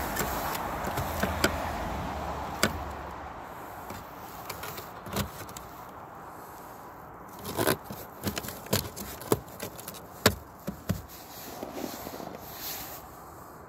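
Plastic clicks and knocks as a Golf Mk5's side mirror glass is handled and pressed by hand onto its snap-on mount in the mirror housing, with a steady rushing noise over the first few seconds.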